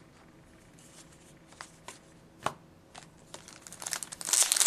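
Trading cards handled with a few light clicks, then from about three and a half seconds in a card-pack wrapper crinkling and tearing loudly as a new pack is opened.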